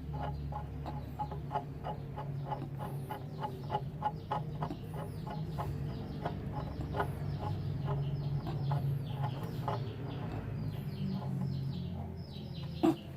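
Chickens clucking repeatedly in quick short calls, several a second, over a low steady hum.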